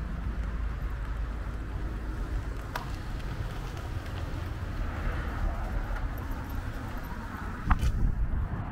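Street traffic: a steady low rumble with a car passing around the middle. Two sharp knocks, the louder one near the end.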